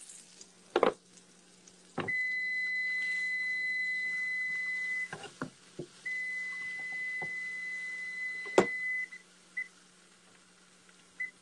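An electronic beeper sounds a long, steady high beep of about three seconds, stops for a second, sounds another of about three seconds, then gives three short beeps near the end. Sharp clicks and knocks fall in between, over a faint steady low hum.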